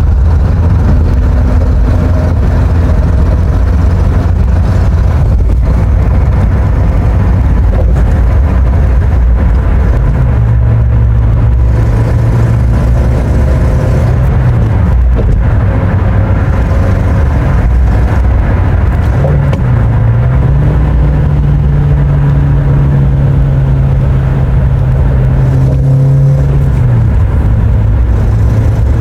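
Car engine pulling under load and accelerating, its pitch climbing about a third of the way in and again past the middle, then falling back near the end. A ticking noise comes with it under load and acceleration.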